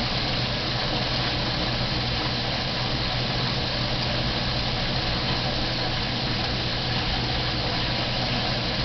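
Steady motor hum over an even rushing hiss from running aquarium equipment.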